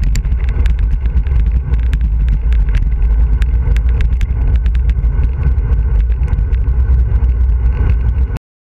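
Wind buffeting the microphone of a handlebar-mounted camera on a road bike descending at speed, a loud steady low rumble mixed with tyre and road noise. Irregular sharp ticks and rattles come as the bike runs over rough asphalt. It cuts off abruptly near the end.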